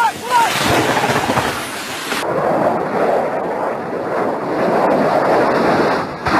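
Loud, rough rumbling noise from a crashing aircraft, with an abrupt change in the sound about two seconds in.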